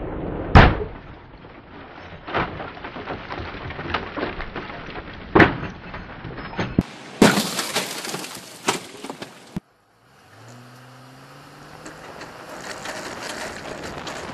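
A motorcycle slamming into the side of a car in a crash test: a sharp crash of metal and breaking windshield glass, heard again from several camera angles. Near the end the sound cuts out and turns to wind noise on an onboard camera, with an engine rising in pitch.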